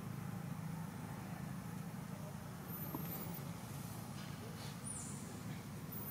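Outdoor ambience: a steady low rumble, with a few faint, very high-pitched chirps about three and five seconds in.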